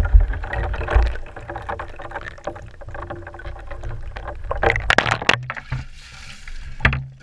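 Ice cubes and water sloshing and knocking about inside a plastic bucket as it is lifted and tipped, heard from inside the bucket. The water pours out in a splash about five seconds in.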